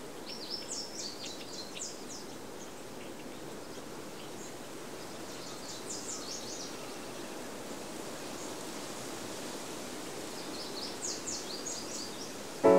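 Rural ambience: a steady soft rushing hiss with small birds chirping in three short flurries of rapid high notes, about a second in, around six seconds in, and near the end.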